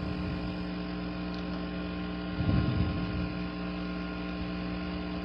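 Steady electrical hum made of several fixed tones, with a brief low thump about two and a half seconds in.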